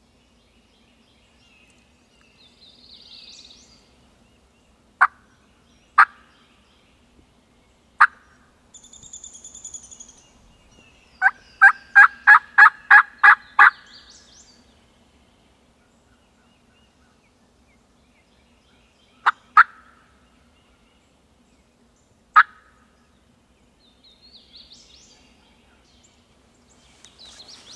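Turkey call worked by a hunter, imitating hen turkey yelps to draw in a gobbler. There are a few single sharp notes, then a run of about ten yelps at about four a second, then a few more single notes. Faint songbird chirps sound in between.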